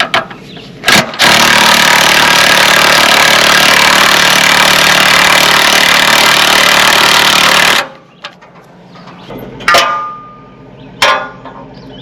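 A power tool runs loud and steady for about six and a half seconds, starting and stopping abruptly, while the sawmill's jack is being let down. Two short metallic knocks follow near the end.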